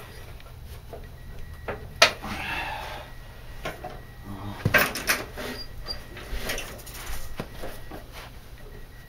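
Scattered clicks, knocks and rubbing from hands forcing a new drive belt onto a snowblower's pulley, with a sharp click about two seconds in and a cluster of knocks near the middle.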